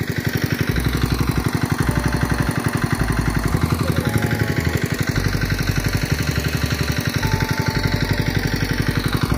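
Engine of a water pump running steadily with a fast, even throb, pumping water out of a river stretch to drain it.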